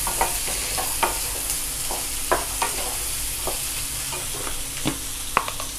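Diced carrots, beans and peas sizzling in a kadai as they are sautéed. A wooden spatula stirs them, with irregular scrapes and taps against the pan about once or twice a second over a steady hiss.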